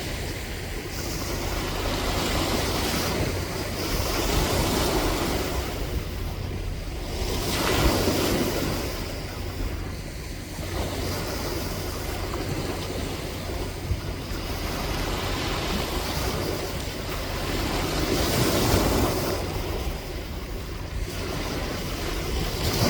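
Sea waves breaking and washing up on the shore, the surf swelling and falling back every few seconds.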